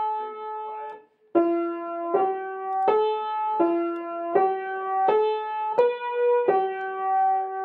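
Conn upright piano played with one finger: a slow, simple melody of single notes, a new note about every three-quarters of a second, the last one held for a couple of seconds.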